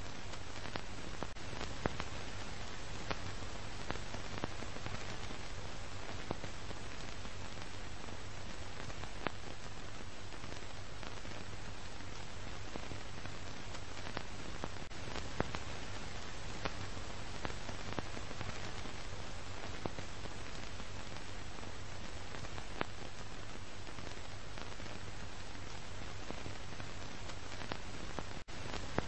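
Steady hiss with scattered faint clicks and a low hum, unchanging throughout: the surface noise of an old film soundtrack.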